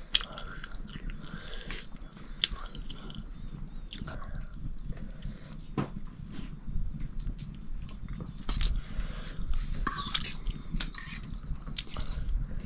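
Eating: chewing with scattered light clicks and clinks of cutlery on dishes, and a couple of louder rustles near the end.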